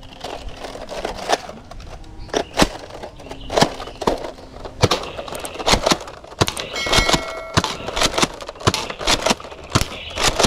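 Nerf Elite Delta Trooper dart blaster being primed and fired again and again, an irregular string of sharp clacks and pops, about two a second.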